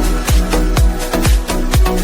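Electronic dance music with a steady four-on-the-floor kick drum, about four beats a second.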